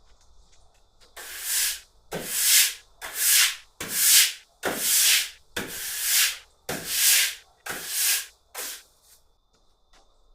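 About ten rough rubbing strokes, one after another at roughly one a second, with a gap after each.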